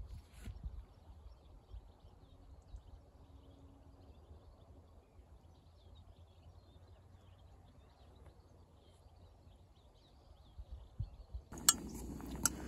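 Faint open-air ambience with scattered faint bird chirps. About a second before the end, a metal utensil starts clinking against a stainless steel pot of cooking pasta as it is stirred.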